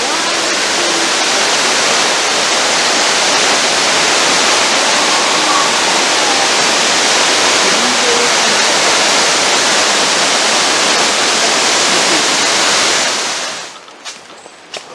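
Waterfall rushing, a loud steady wash of falling water. It drops away sharply about a second before the end, leaving a few faint clicks.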